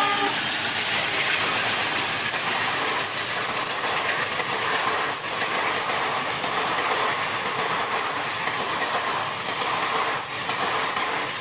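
Indian Railways passenger train of coaches passing close by: a steady, loud rumble with the clatter of wheels over rail joints.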